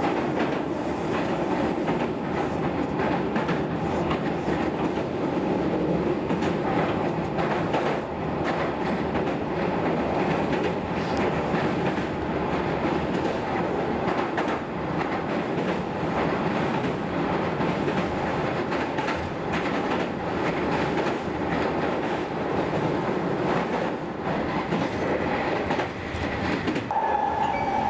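Meitetsu electric train running at speed, heard inside the passenger car: a steady rumble and hiss with the wheels clacking over rail joints. About a second before the end, a steady pitched tone with overtones starts.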